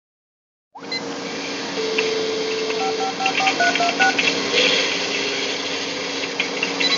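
Office background ambience that starts about a second in: a steady machine hum with faint clatter, and a run of about eight short touch-tone telephone keypad beeps about three to four seconds in.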